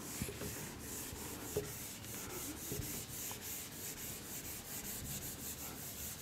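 Whiteboard eraser rubbing across a whiteboard, wiping off marker writing in quick back-and-forth strokes, a few strokes a second, with a few soft knocks.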